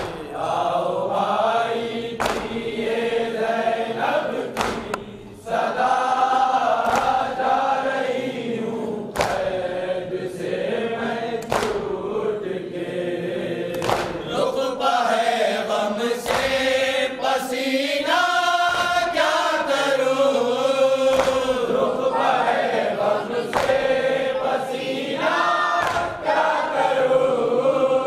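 A group of men chanting a noha, a Shia lament, in unison behind a lead reciter on a microphone. Sharp chest-beating strikes (matam) land about once a second.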